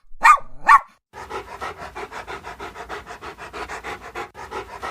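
A dog yaps twice, then pants rapidly and steadily at about five breaths a second.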